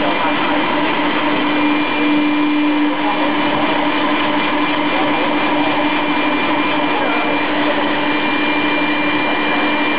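A 2-axis roller brush making machine running steadily as it tufts a plastic roller tube: continuous mechanical noise with a constant hum and a high steady whine.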